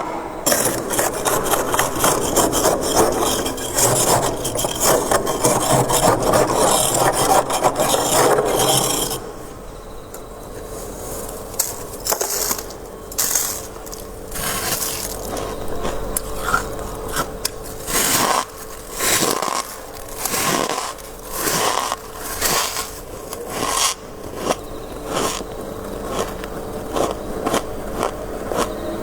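Frost being scraped off a freezer: fast, continuous scraping for about the first nine seconds, then a run of separate short scrapes or crunches about once a second.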